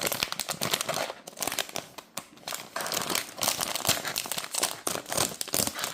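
Crinkly packaging around a blind-box toy being crumpled and pulled open by hand in quick crackling bursts, easing off briefly about a second in before picking up again.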